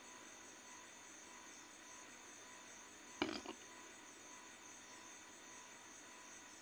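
Faint steady background hiss with a thin high-pitched whine, broken about three seconds in by a quick run of three small knocks.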